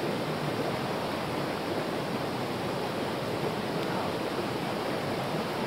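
Shallow rocky forest stream running over stones: a steady, even rush of water.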